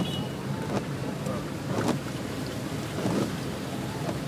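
Heard from inside a car driving along a flooded road in heavy rain: a steady wash of rain and water noise from the tyres and the car's body. A few short knocks or splashes stand out.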